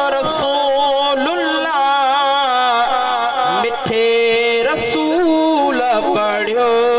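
A man singing a Sindhi hamd into a microphone, in long held melismatic notes that waver and bend in pitch.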